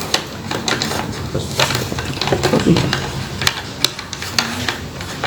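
Irregular clicks and knocks of an electrical utility box and its wires being handled and pushed into place.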